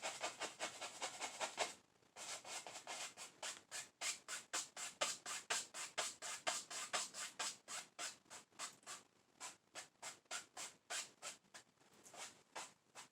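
Paintbrush scrubbing and dabbing oil paint onto canvas in quick short strokes, about four a second, with a brief pause about two seconds in.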